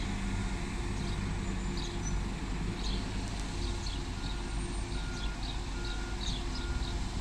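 Diesel bus engines running with a steady low rumble. Short high chirps of small birds sound throughout, and from about four seconds in a short electronic beep repeats roughly twice a second.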